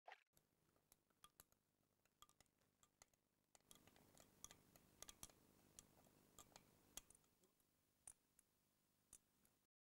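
Faint, irregular clinks of a teaspoon stirring sugar into coffee in a small glass, several a second, cutting off abruptly near the end.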